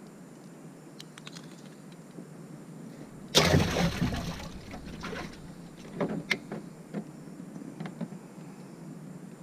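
A caught bluegill splashing in the water once, for about a second, a little over three seconds in, followed by a few light knocks and clicks against a small boat.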